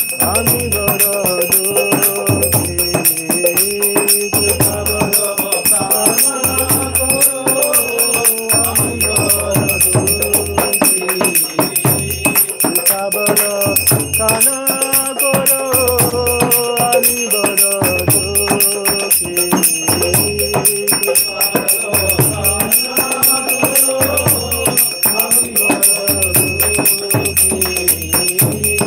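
Devotional kirtan music during an arati: a hand bell rings steadily with jingling cymbals over a regular drum beat and a sung melody.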